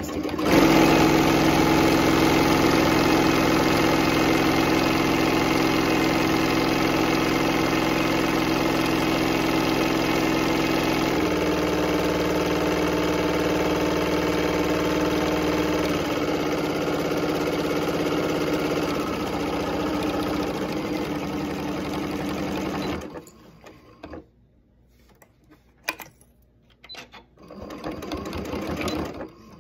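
Electric sewing machine stitching through fabric at high speed, its motor stepping down to a slower speed about a third of the way in and again about halfway, then stopping. A few light clicks follow. The sewer likens the slowing run to a boat throttling down as it nears the dock.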